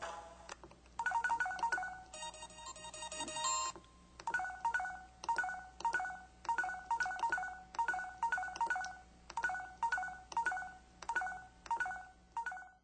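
LG KP4700 mobile phone playing its built-in effect sounds through its small speaker: a few short electronic tones, a brief chiming jingle, then a quick beeping alert pattern repeating roughly every half second.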